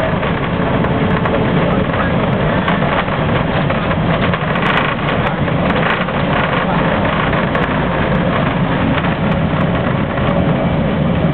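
Boeing Jetfoil 929-100 under way: its gas turbines and water jets make a steady, loud noise, heard from inside the passenger cabin.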